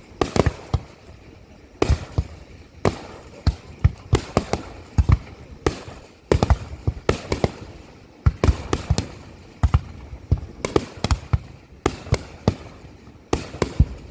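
Aerial fireworks shells bursting in a rapid finale barrage: a quick run of sharp booms, several a second at the busiest moments, with short pauses between clusters.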